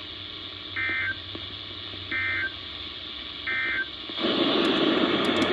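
Emergency Alert System end-of-message (EOM) code on NOAA Weather Radio: three short warbling data bursts about a second and a half apart, marking the end of the tornado warning broadcast. Near the end, steady radio static hiss takes over.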